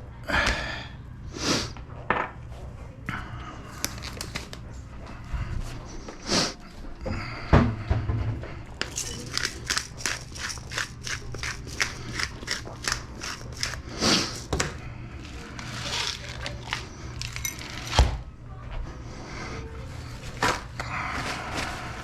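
Spice shakers being shaken over a roast, a quick run of rattling shakes at about four a second, with sharp clicks and knocks as the containers are handled and set down. A steady low hum lies underneath.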